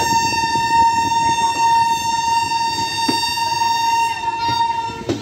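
Locomotive horn of the departing Kerala Superfast Express, sounding one long blast at a steady pitch that stops shortly before the end. The rumble of the train runs beneath it.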